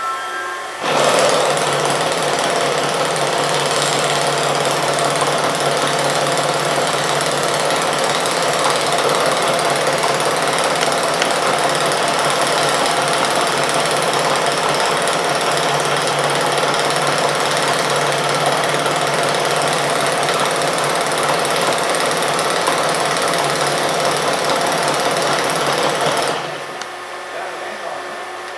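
TIPTIG hot-wire TIG welding on stainless steel: the arc burns with the filler wire fed into the pool, making a steady, harsh noise. It starts about a second in and stops shortly before the end.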